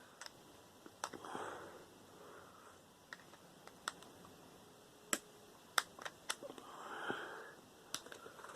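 Faint, scattered clicks and small snaps, a dozen or so at uneven intervals, from small plastic and metal parts of a microwave's synchronous motor being handled and prised apart by hand.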